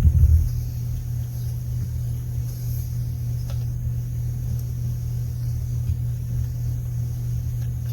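Steady low hum with a few low knocks right at the start and a faint click about three and a half seconds in.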